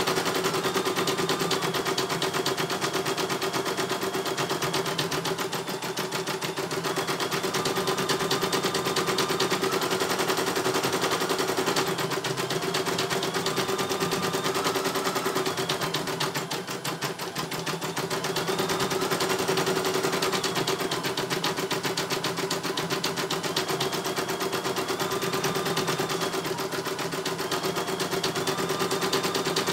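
CNY E900 computerised embroidery machine stitching a test design: a rapid, even needle clatter over a steady motor hum, with a whine that steps up and down in pitch every few seconds as the hoop is driven about. Briefly quieter about halfway.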